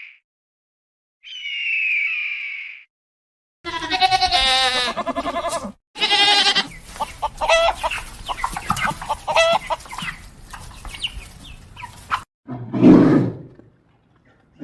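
A run of different animal calls, one after another with abrupt cuts between them: a short falling high call, then a fast pulsing bleat- or cackle-like call, then several seconds of overlapping varied calls, and a lower call near the end.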